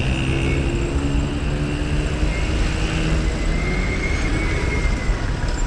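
Motor engines running steadily in a dense mix of engine noise, one engine's hum clear at first and fading about halfway through.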